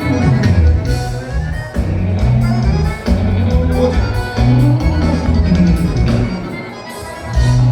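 Live gaúcho dance band playing instrumental dance music, with bass notes and an accordion-led melody. The music dips briefly near the end, then comes back in full.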